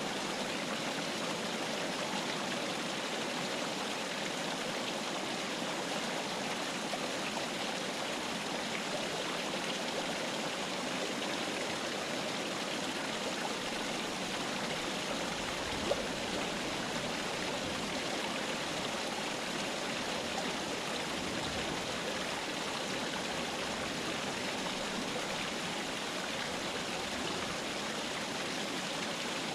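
Mountain river flowing over rocks: a steady rush of water, with one brief click about halfway through.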